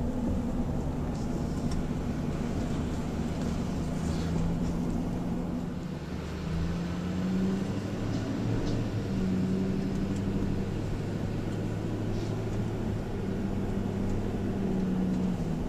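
Car engine and road noise heard from inside the cabin while driving. The engine hum rises and falls in pitch a few times as the car speeds up and eases off.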